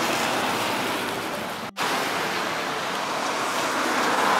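Steady hiss of rain falling on a wet street. It cuts out for an instant a little under two seconds in.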